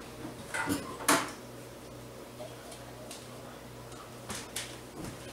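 A few light clicks and knocks from things being handled on a kitchen countertop, over a faint low hum.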